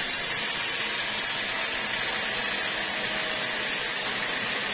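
Band sawmill blade cutting lengthwise through a teak log: a steady, even hiss of the saw in the wood, with no change in pitch or level.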